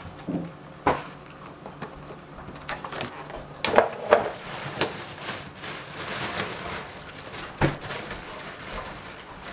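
Salad-making handling sounds: scattered light knocks and clicks, loudest about four seconds in, with soft rustling between them, as cherry tomatoes are cut with a knife and the greens in a stainless steel bowl are handled.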